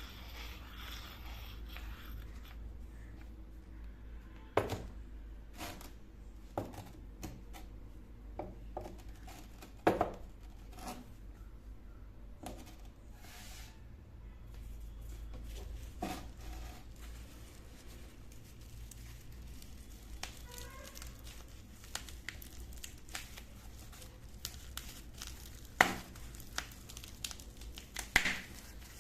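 Scattered light clicks and knocks of small hard objects being handled and set down, with some crinkling of packaging, over a steady low hum.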